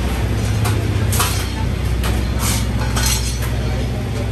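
A few short metallic clinks and rattles of clutch parts being handled in a Top Fuel dragster's pit, over a steady low machinery hum.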